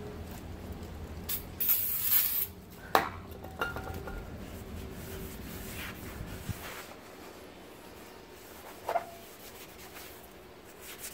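An aerosol can of brake cleaner sprays in a short hiss about a second and a half in, cleaning a new brake rotor, followed by a couple of sharp knocks.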